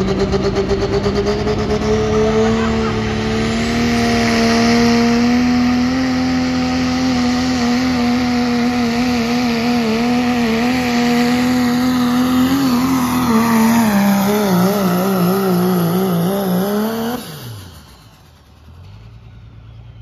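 Diesel four-wheel-drive pickup truck pulling a sled at full throttle, its engine note held high and steady. Near the end the pitch wavers, and then the engine suddenly drops off and winds down as the pull ends.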